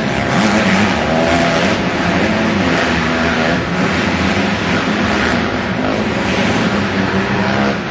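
Dirt bike engines running hard in a race, their pitch rising and falling with the throttle.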